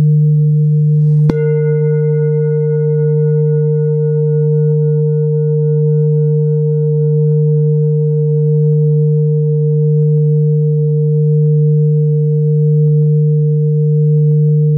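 Tibetan metal singing bowls ringing: one is struck once with a padded mallet about a second in, over a deep bowl tone already sounding. The deep tone and higher overtones then ring on steadily with a slow pulsing waver.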